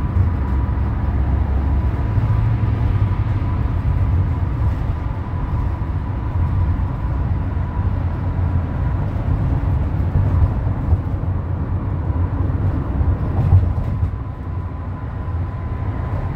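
Road noise inside a car cruising on a freeway: a steady low rumble of tyres and engine, with a thin steady tone running above it.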